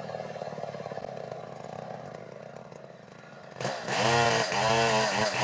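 Stihl chainsaw engine running at low speed, then about three and a half seconds in revved hard, its pitch rising and falling repeatedly with the throttle.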